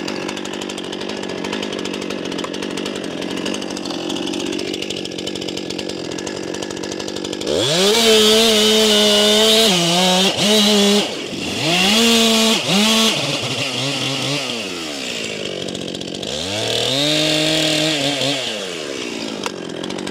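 Stihl chainsaw idling, then opened up to full throttle about seven and a half seconds in and cutting the gob (face notch) into the base of an alder trunk. The engine note dips and recovers as the chain bites, drops back to idle briefly, then is pulled down and back up again in a second cut near the end.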